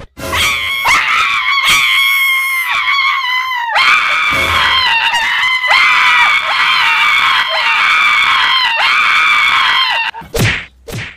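A man screaming at the top of his voice in several long, high-pitched, held screams with short breaks between them, then two short sharp sounds near the end.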